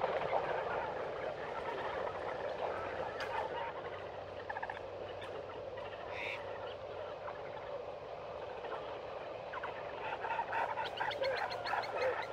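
Continuous chatter of short animal calls, clucks and chirps, which thickens into rapid runs of quick clicking calls near the end.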